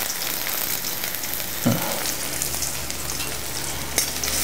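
Chopped onions frying in hot oil in a stainless-steel kadai: a steady sizzle. A metal spatula gives a couple of short knocks against the pan, one about a second and a half in and one near the end.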